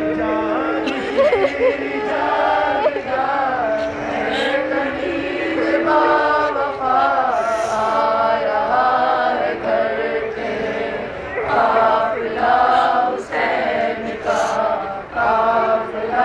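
A male reciter singing a nohay, a Shia lament for Imam Hussain, over a microphone, with a crowd of mourners chanting the lament's refrain together in reply.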